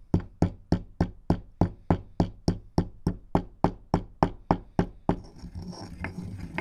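A pestle pounding nutmeg and long pepper in a granite mortar: about three sharp knocks a second for some seventeen strokes. About five seconds in it gives way to a softer scraping as the pestle is turned round to grind.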